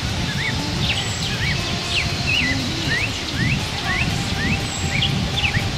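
Songbirds singing in spring woodland: many short, quick rising chirps, one after another, over a steady low background noise.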